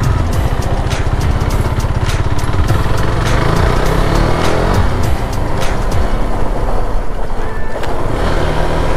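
KTM Duke 390's single-cylinder engine running under load as the motorcycle accelerates, from the rider's seat, with its pitch rising in places.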